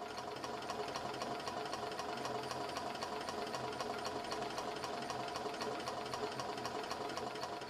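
Three-cylinder low-temperature-difference Ringbom Stirling radial engine of brass and steel running, giving a rapid, even ticking over a faint steady hum; the sound fades up over the first second.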